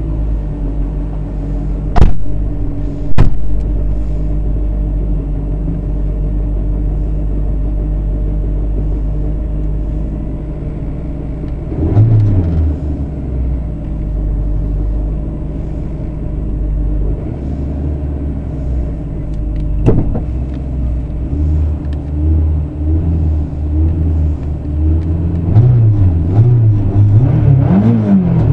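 Rally car engine idling, heard from inside the cabin, with two sharp knocks about two and three seconds in and a single throttle blip twice along the way. In the last few seconds the engine is revved up and down repeatedly, held ready at the stage start.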